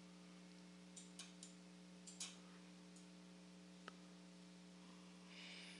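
Near silence: a steady low electrical hum with a few faint computer-mouse clicks, scattered in the first four seconds, and a soft hiss near the end.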